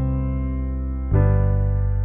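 Background music: sustained keyboard chords, with a new chord struck about a second in and left to ring and fade.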